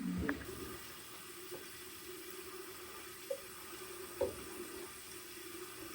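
Water running steadily from a kitchen tap into a sink, with a few light knocks.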